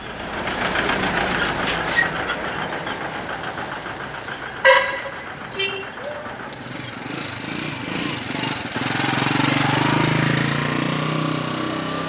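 Street traffic with motor tricycles and motorbikes going by. Two short horn beeps sound a little before the middle, the first the louder, and a small engine runs close by from about three-quarters of the way through.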